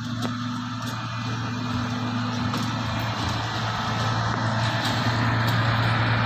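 Diesel engine of a Socofer rail maintenance vehicle running light along the track: a steady low engine drone that grows louder as it comes past.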